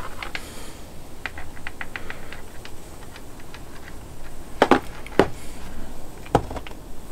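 Handheld static grass applicator being shaken over layout scenery: a run of light clicks and ticks, then three louder knocks, two close together and one near the end.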